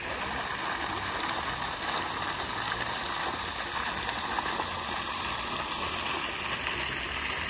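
Fountain jet spraying up and falling back into its pool: a steady, unbroken splashing of water.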